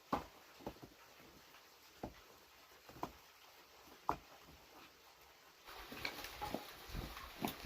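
Sharp knocks and clicks at irregular intervals, roughly one a second, like hard objects being handled. About six seconds in, a steady rushing noise comes in and the knocks come faster.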